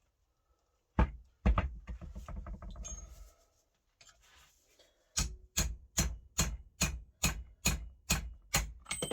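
Hammer blows on the steel parts of a car differential: one sharp blow about a second in, a quick flurry of lighter knocks, then a steady run of about ten strikes, two to three a second, while working to drive the pinion out.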